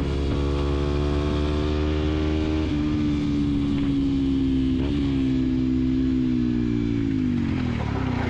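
Yamaha WR125X supermoto's single-cylinder four-stroke engine pulling hard at high revs on the road. Its pitch sags slowly with two brief dips, then falls away near the end as the bike slows for a bend.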